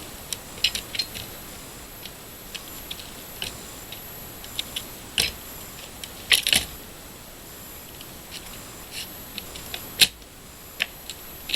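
Scattered light clicks and knocks of wood and metal as a wooden pallet is pried apart with a pallet buster bar. A louder clatter comes a little past halfway, and a single sharp knock toward the end.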